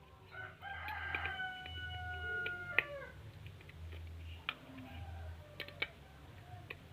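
A single long animal call lasting about two seconds, its pitch sagging slightly toward the end, among a few light clicks.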